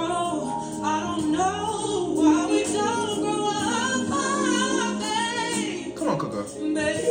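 A woman singing an R&B song live, with gliding runs over a band accompaniment.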